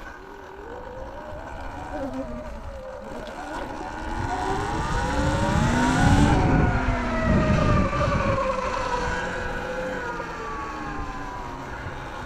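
Sur-Ron electric dirt bike's motor and drive whining as it rides, rising in pitch as it speeds up about midway and then falling slowly as it eases off, with wind rumble on the microphone loudest at top speed.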